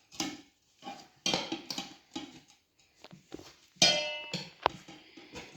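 Metal tire irons clanking and scraping against a dirt bike wheel rim while the tire bead is levered on over a mousse insert. The clanks come in several separate strokes, and one about four seconds in rings out with a metallic tone.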